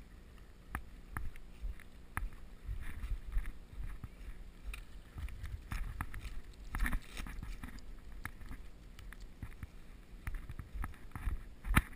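Footsteps and movement of an angler on a sandy, brushy stream bank: irregular soft knocks, rustles and twig snaps over a low, uneven rumble, with a louder cluster about seven seconds in and another just before the end.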